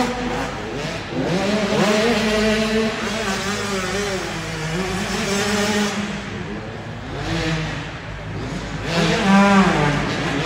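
Dirt bike engine racing, its revs climbing and dropping again and again as the throttle is worked over the jumps. The pitch rises sharply about a second in and again about nine seconds in.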